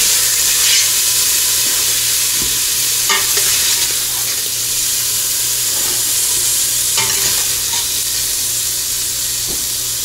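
Chunks of beef stew meat sizzling steadily as they brown over high heat in a stainless steel stockpot, with a few light clicks of chopsticks against the pot as pieces are turned and lifted out.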